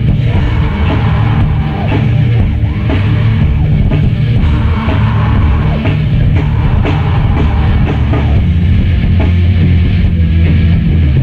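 Recorded metalcore music: a heavy band with distorted guitars and drums playing loud and dense throughout.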